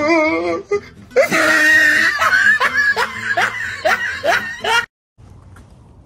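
A wavering, drawn-out voice, then from about a second in a loud run of ha-ha laughter lasting several seconds that cuts off abruptly near the end, leaving faint background noise.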